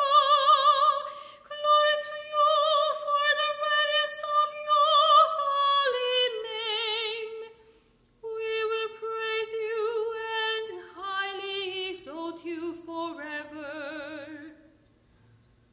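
A woman singing a church canticle solo in a classical style, holding long notes with vibrato. She breaks off for a breath about eight seconds in, and the phrase fades out near the end.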